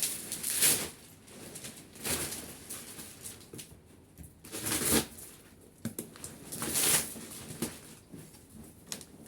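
Plastic packaging of a vacuum-packed roll mattress rustling and crinkling as it is handled and opened, in four louder bursts with smaller rustles between.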